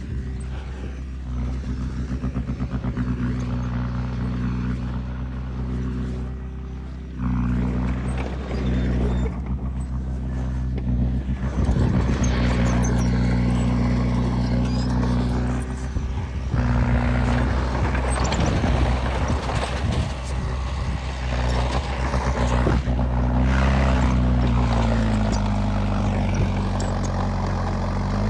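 Diesel engine of earthmoving machinery running steadily under load, with a noisy clatter over the middle and the engine revving up and back down near the end.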